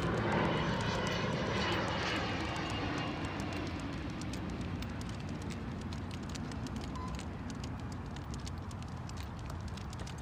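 A steady engine drone from passing traffic or an aircraft overhead, fading over the first few seconds into a low background rumble, with faint crackling ticks throughout.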